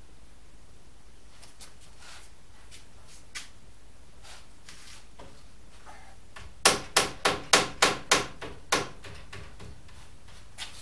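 Wooden spar being knocked into place against a plywood camper wall: a quick run of about seven sharp knocks, roughly three a second, after a few faint taps and clicks of the wood being handled.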